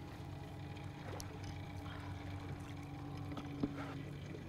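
Boat's outboard motor running steadily at trolling speed, a low even hum, with one light click a little past three seconds in.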